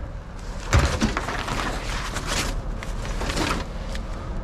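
Handling noise as scavenged items, a life jacket and fishing poles, are carried to a pickup truck's bed: a knock about a second in, then rustling with light knocks.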